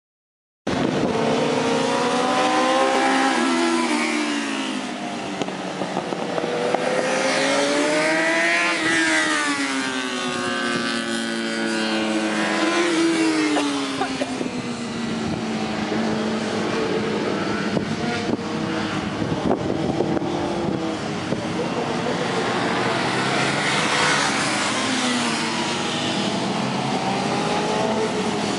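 Sport motorcycles racing on a circuit, several high-revving engines overlapping, their pitch climbing and dropping again and again as the bikes accelerate and shift gears. The engines come in suddenly about a second in.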